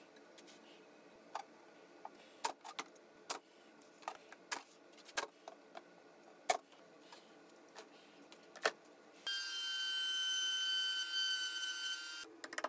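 A nail gun drives brads into a plywood lid on a pine box: about a dozen sharp shots at irregular spacing. Near the end a steady high whine runs for about three seconds.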